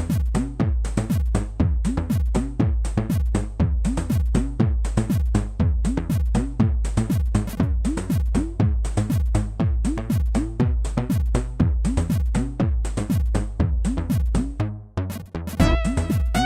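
Electronic dance music: a fast, steady drum-machine beat over heavy bass. Near the end the beat breaks off briefly and a synth melody comes in.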